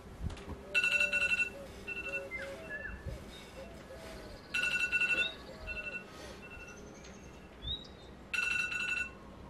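Smartphone alarm ringing: a repeating electronic beep pattern, a burst of rapid beeps about every four seconds with single beeps between them. A few short high chirps sound alongside.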